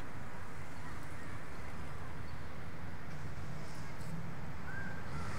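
Steady low rumble of outdoor urban background noise, with a short faint high tone near the end.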